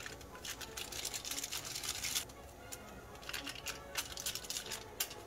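Ramen seasoning packet crinkling and rustling as its powder is shaken out over simmering broth, in two spells of rustle, one early and a shorter one later.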